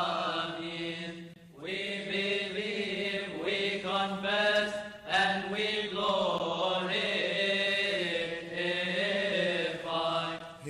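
Coptic liturgical chant: voices singing a slow, drawn-out melody over a steady held low note, with two short breaths in between.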